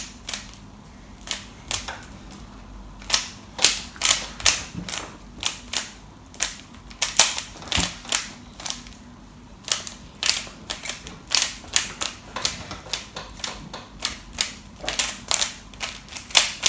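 Rubik's cube being turned by hand: quick, irregular runs of plastic clicks as the layers snap round, broken by short pauses.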